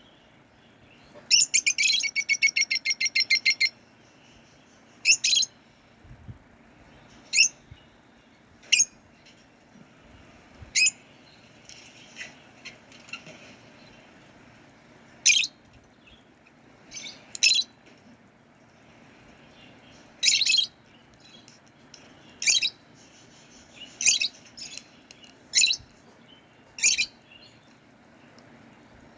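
Lovebirds chirping: a fast run of high-pitched chirps about a second in, then single sharp calls every second or two.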